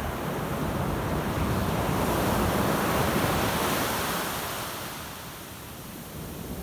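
Ocean surf breaking and washing up a sandy beach: a rush of water that swells to its loudest about three seconds in, then draws back.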